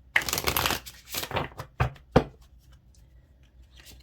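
Oracle card deck being shuffled by hand: two spells of rustling card noise, then two sharp taps about two seconds in.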